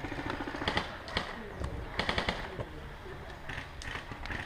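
Airsoft rifles firing: scattered sharp pops and clacks, single shots and short strings, several over a few seconds.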